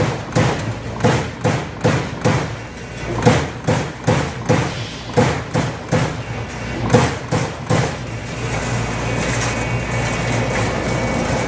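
Amada Aries 245 CNC turret punch press punching sheet metal: a run of sharp hits, about two a second. About eight seconds in the hits stop and a steady machine hum with a faint high whine carries on.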